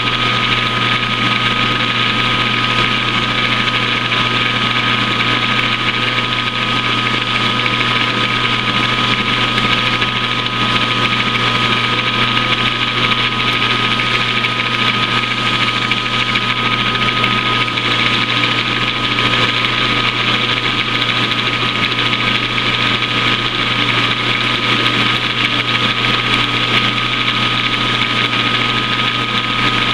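Metal lathe running with its chuck spinning a 1018 steel round-stock blank while taking a facing cut: a steady motor and gear hum with a high whine and cutting hiss.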